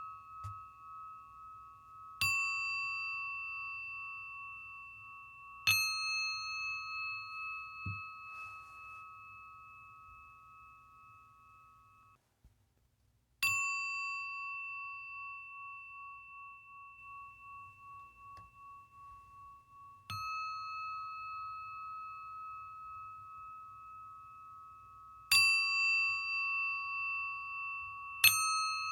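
Singing bowl struck about six times, each strike ringing on and slowly fading with a gentle wavering pulse in its tone. The ringing drops out abruptly for about a second near the middle before the next strike.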